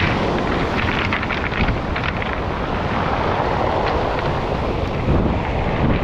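Wind buffeting the microphone with a heavy low rumble, over waves breaking and washing up a pebble beach.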